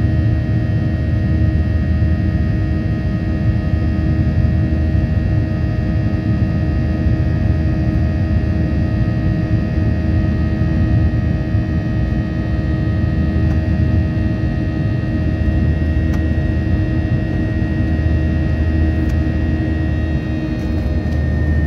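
Airliner cabin noise during the climb after takeoff: the jet engines' steady low rumble with a constant whine of several steady tones over it.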